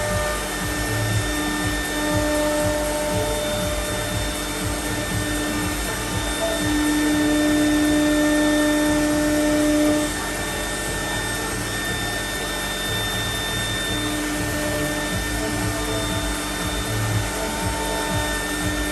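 CNC router spindle and dust extraction running steadily while milling aluminium composite panel, a whine of held tones over the noise, louder for a few seconds in the middle.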